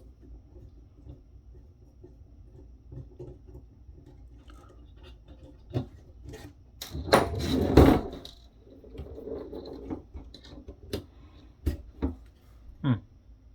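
Hands handling a circuit board and small parts on a work surface: scattered clicks and knocks, with a louder scrape and rustle about seven to eight seconds in.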